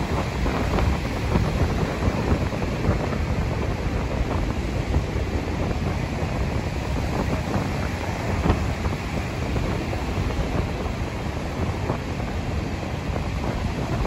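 Rough surf breaking steadily on a sandy beach, with wind buffeting the microphone.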